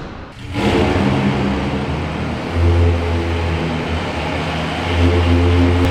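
Cold start of the V8 engines of a Dodge Challenger Hellcat and a Ferrari F430: they catch with a loud burst about half a second in, then run at a fast, loud idle that swells twice, echoing inside a warehouse.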